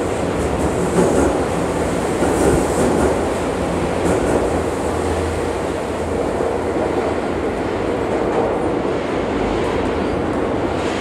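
Tokyu 8500 series electric train pulling out of an underground station. The wheels clatter over rail joints as the last cars pass in the first few seconds, then a steady rumble continues as the train runs into the tunnel.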